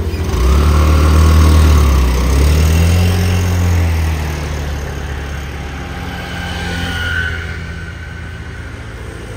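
A motor vehicle's engine moving off. It swells loud about half a second in, rises in pitch as it accelerates, then fades away over the next several seconds.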